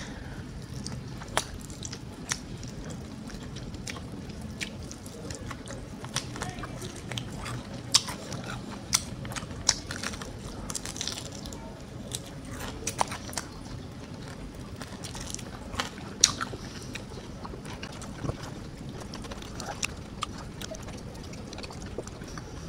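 Biting into and chewing a crispy-coated fried chicken drumstick, with scattered sharp crunches and mouth clicks over a low steady hum.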